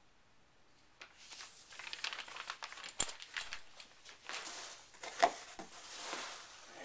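Hands rummaging through foam packing peanuts and plastic wrapping in a cardboard box: rustling and crinkling that starts about a second in, with a sharp click around the middle and a louder knock later on.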